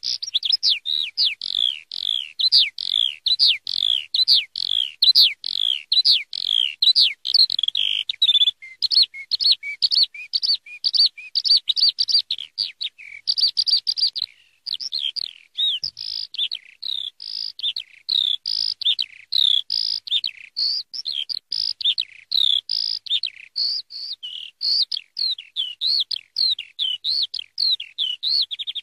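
Eurasian skylark singing: a long, rapid, unbroken stream of high chirps, trills and whistles, pausing briefly about a third of the way in and again for about a second near the middle.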